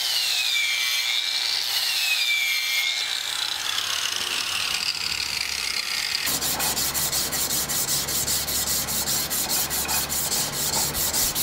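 An electric angle grinder runs against the steel bolster of a knife, its motor whine rising and falling as the load changes. About six seconds in, this gives way to hand sanding of the steel blade: sandpaper on a block rubbed back and forth in quick, even strokes, several a second.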